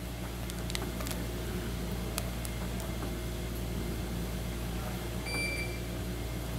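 Steady low hum of dialysis-room machinery, with a short, high electronic beep about five seconds in and a few faint clicks in the first couple of seconds.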